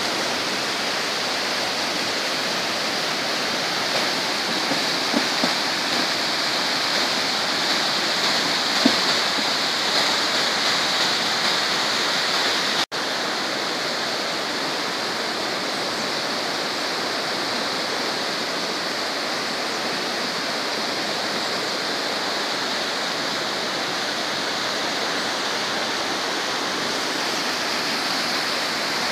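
Fast, muddy flood water of a river in spate rushing and churning past the bank in a steady, loud hiss. The sound breaks off for an instant about halfway through.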